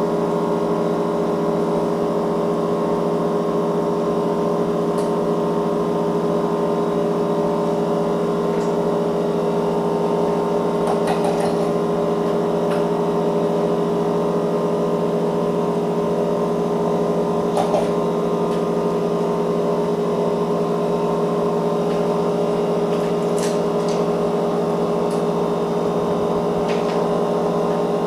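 Steady machine hum with many even tones, unchanging throughout, with a few faint clicks and taps, one about halfway through.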